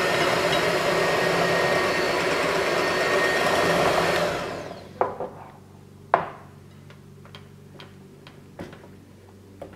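Electric hand mixer running steadily, winding down and stopping about four seconds in. After it come a handful of sharp clinks and knocks, a spoon against a glass mixing bowl as flour is spooned in.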